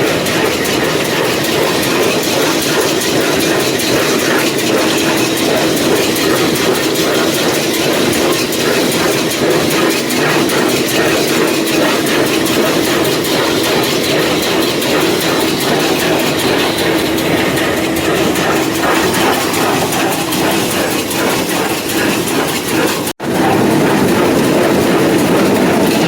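John Deere 328 small square baler running empty on the tractor's PTO, a loud, fast, steady mechanical clatter over the drone of the tractor engine. The sound drops out for an instant about three-quarters of the way through, then carries on unchanged.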